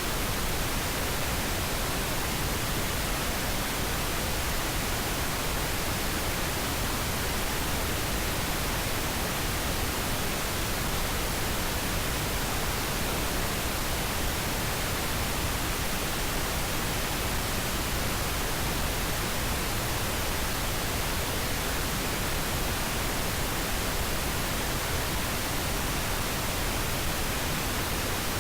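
Steady pink noise: an even, unchanging hiss spread across the whole range of pitch, with no breaks or events.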